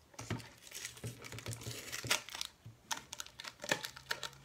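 Cardboard mailing tube being opened by hand: a run of irregular taps and scratches on the tube's end and crinkling of crumpled packing paper pulled from inside.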